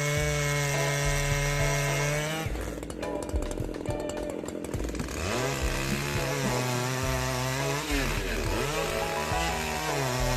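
Large two-stroke chainsaw running and cutting through an oak trunk. Its engine note dips and recovers several times under load.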